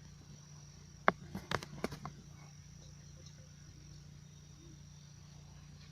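Crickets chirping steadily in the background, with four or five sharp clicks about a second in.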